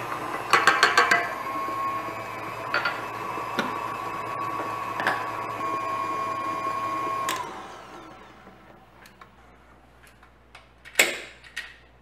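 KitchenAid Artisan tilt-head stand mixer running steadily, its wire whisk beating cake batter, with a flurry of quick taps about half a second in. The motor is switched off a little past halfway and winds down. A single clunk comes near the end as the mixer head is handled.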